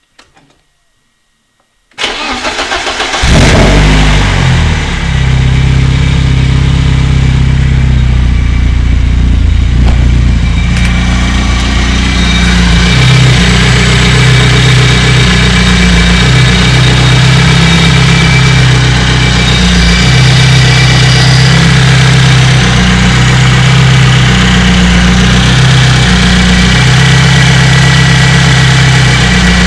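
BMW M42B18 1.8-litre twin-cam four-cylinder engine cranked by the starter about two seconds in, catching after about a second and settling into a steady idle. The engine has worn cam sprockets and a slack timing chain.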